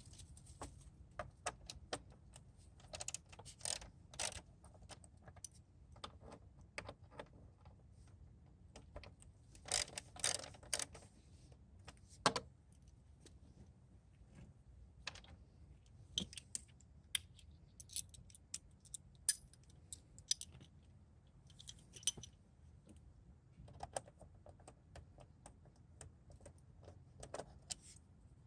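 Irregular light clicks, taps and rattles of plastic tail panels and small screws being handled and worked apart, with a denser cluster about ten seconds in.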